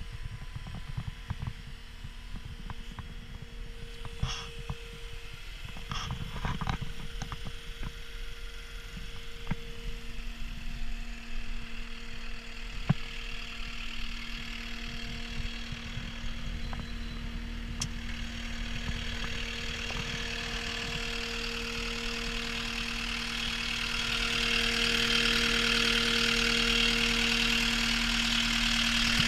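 CAT 259D compact track loader's Cat C3.3B diesel engine idling with a steady hum, with irregular crunching footsteps in snow during the first several seconds. Near the end the engine gets louder and hissier, heard through the open engine compartment.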